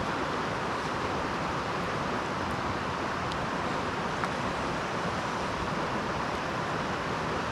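Steady rushing of a river or creek running past, with a few faint clicks.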